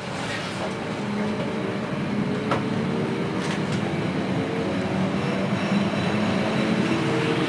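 Passenger train running, heard from the vestibule directly behind an EU07 electric locomotive: a steady rumble with a low hum that slowly rises in pitch and grows louder as the train gathers speed, and a couple of sharp clicks in the middle.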